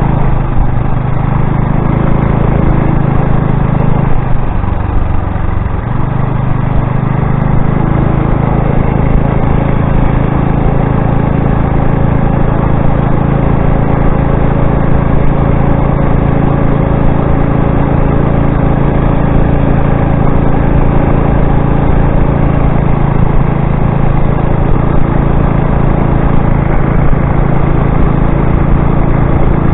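Motorized bicycle's gas engine running while riding, with a steady engine note that drops briefly about four to six seconds in as it eases off, then picks back up and holds.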